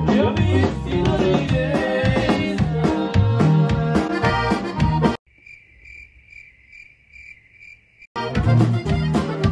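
Accordion-led Mexican regional music playing, cut off abruptly about five seconds in. A short run of evenly spaced cricket chirps follows, then the music returns abruptly about three seconds later.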